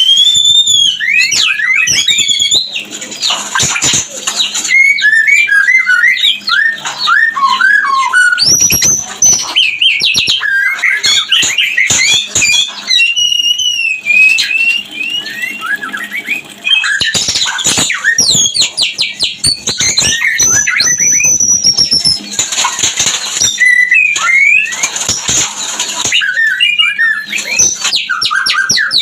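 White-rumped shama (murai batu) singing in breeding condition: a fast, varied stream of whistled phrases, rising sweeps and trills, broken every few seconds by harsh rasping calls.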